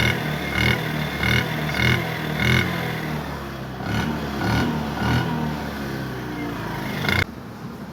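Hero Pleasure Plus scooter's engine running, its exhaust giving a pulsing note that recurs about every half second to second. This is the loud silencer sound the customer wants quietened, which a silencer repair has not cured. The sound cuts off abruptly near the end.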